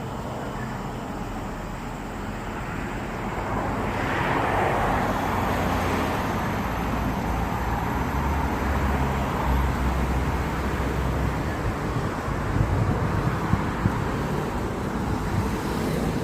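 Steady road traffic noise, with a vehicle passing and swelling louder about four seconds in. There are a few short knocks near the end.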